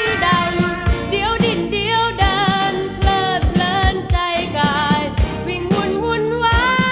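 1980s Thai pop song: a woman singing over a band with a steady drum beat.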